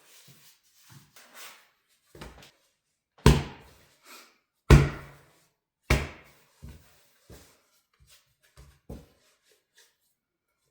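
A series of knocks and thumps: three loud ones with a short ringing tail, each about a second and a half apart, among quieter taps and clicks.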